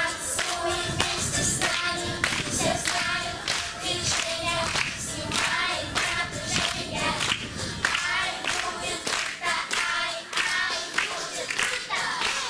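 A group of children singing a song together, with hand clapping keeping time throughout.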